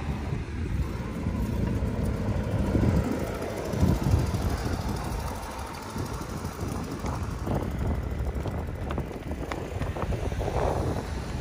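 Wind buffeting a handheld phone microphone that is carried along at running pace, a steady low rumble, with a few short knocks in the second half.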